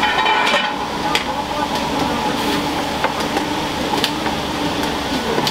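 Ramen shop kitchen at work: scattered sharp clinks and knocks of bowls and utensils over a steady hum and rush from the kitchen equipment, with voices in the background.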